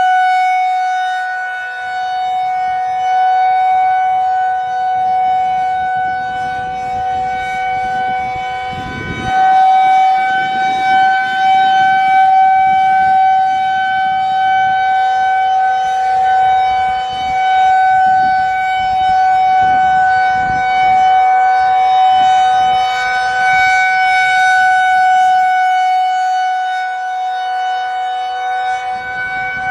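Federal Signal 2001-130 rotating electromechanical warning siren sounding a single steady tone, its loudness swelling and fading as the head turns toward and away.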